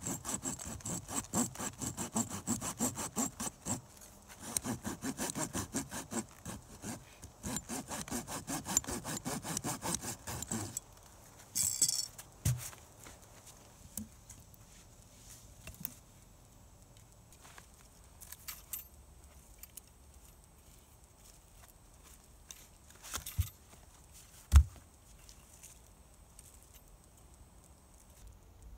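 Hand saw cutting through a green hemlock stick with quick, even back-and-forth strokes for about ten seconds, broken by two short pauses. After the cut there is a brief rasp and then a few dull knocks as the wooden sticks are handled and set down on the forest floor.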